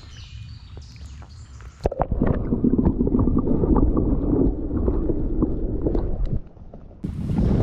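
Muffled underwater gurgling and sloshing of creek water, heard through a GoPro dipped below the surface. It begins about two seconds in with a knock and continues as a loud, dull churning. Near the end it turns into a brighter rush of water.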